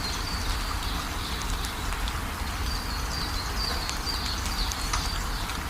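Steady rain falling, with scattered drop ticks over a low rumble, while a bird gives runs of short high chirps, most of them in the middle.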